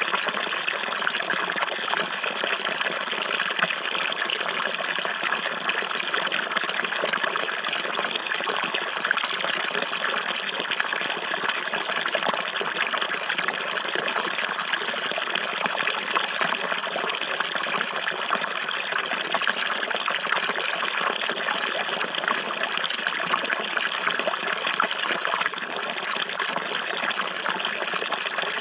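Running water flowing steadily: an even, unbroken trickling rush that never changes in level.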